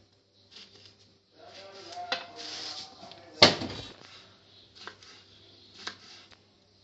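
Kitchen knife slicing through lemons and knocking on a bamboo cutting board: about five separate knocks, the loudest about three and a half seconds in.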